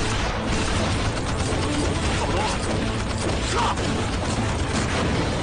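Rapid pistol gunfire in a shootout, shots following one another several times a second and overlapping.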